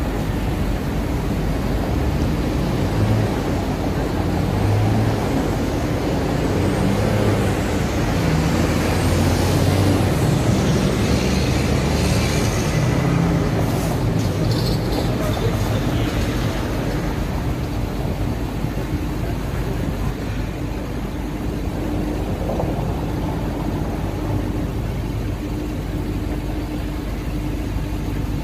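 Street traffic at a city intersection: cars and a heavy dump truck drive past close by. The truck's diesel engine swells to the loudest point about a third of the way in, and a short high hiss comes near the middle before the traffic settles back to a steadier hum.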